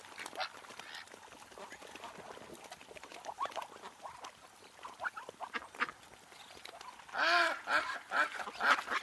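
Ducks quacking, many short calls overlapping. The calls stay fainter and scattered at first, then a loud drawn-out call about seven seconds in is followed by a quick run of quacks.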